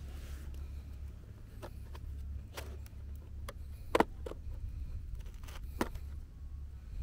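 Cardboard retail box handled by hand as it is opened: a few short sharp taps and clicks from the box and its flap, the loudest about four seconds in, over a steady low rumble.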